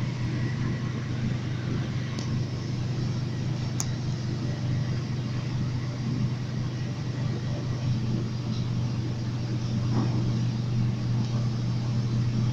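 Running noise of an MTR Tung Chung Line train at speed, heard from inside the carriage: a steady low hum over the rumble of the wheels on the rails.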